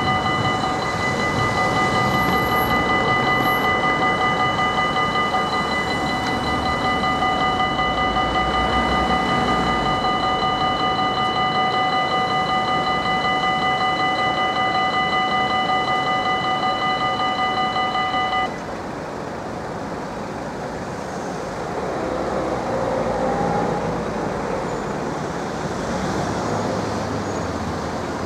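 Belgian level crossing warning bell ringing rapidly and steadily while the barriers lower, warning that a train is approaching. It stops abruptly about 18 seconds in, leaving the sound of road traffic.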